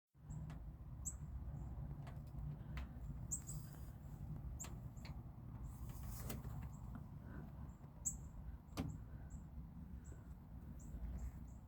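Songbirds giving many short, high chip notes in an irregular series, over a steady low rumble and a few sharp clicks.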